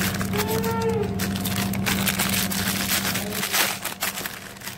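Clear plastic wrapping crinkling and rustling as it is handled, over a steady low hum that stops about three and a half seconds in.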